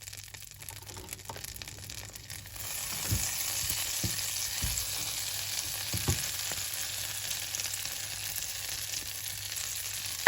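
Finely cut garlic sizzling in melted butter in a frying pan on low heat. The sizzle grows louder about two and a half seconds in, and a few soft knocks are heard partway through.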